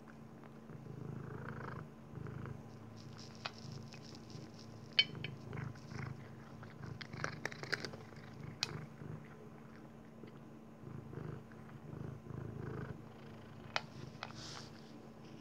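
Maine Coon cat crunching dry kibble from a metal bowl, with scattered sharp crunches, over a steady purr.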